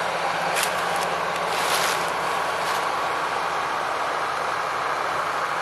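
Heavy harvest machinery running steadily, with a few light rattles about half a second, two seconds and nearly three seconds in.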